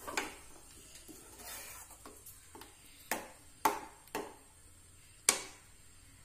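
A steel ladle stirring a thick curry in a stainless steel pan, with several sharp clinks of the ladle against the pan, the loudest near the middle and about five seconds in.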